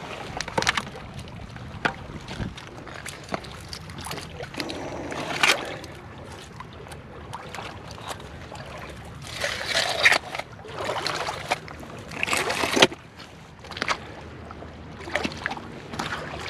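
Oyster shells and rocks clattering and scraping in wet mud as they are dug through and turned over by gloved hands and rubber boots, in a series of short irregular bursts.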